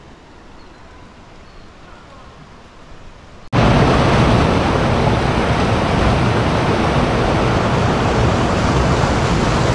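Faint outdoor background hush, then suddenly, about three and a half seconds in, the loud steady rush of river rapids pouring over boulders.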